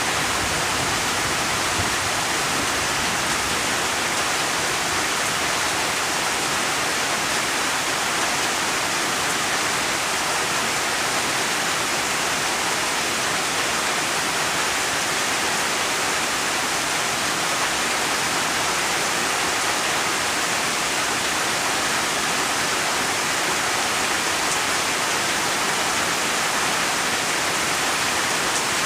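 Steady rain, a dense even hiss with no single drops or thunder standing out.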